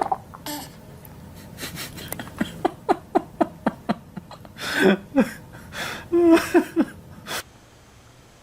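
A baby laughing: a run of short, quick giggles about four a second, then two louder bursts of laughter.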